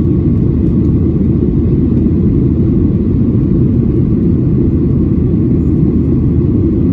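Steady low rumble of engine and airflow noise inside a jet airliner's cabin, even and unchanging.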